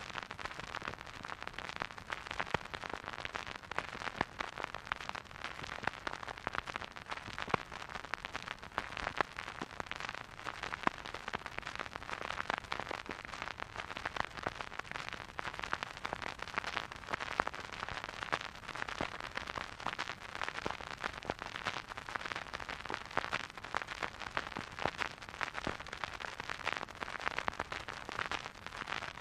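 Record-player surface noise: a steady hiss thick with small crackles and pops from the stylus riding a vinyl groove.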